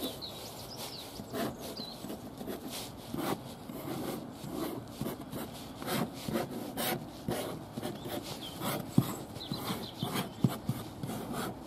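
A fingertip scratching letters through frost on a car window: a run of short, scratchy rubbing strokes. Two sharp knocks near the end are the loudest sounds.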